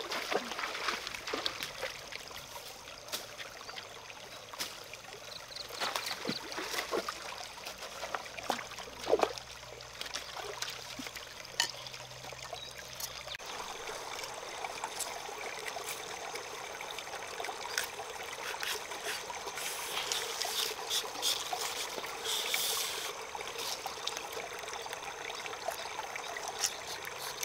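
Water trickling steadily, with scattered light clicks and knocks; the water sound grows fuller about halfway through.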